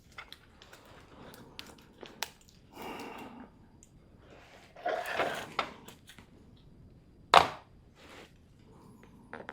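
Hand-working sounds: scattered clicks and two short rustling, crunching bursts, then one sharp knock about seven seconds in.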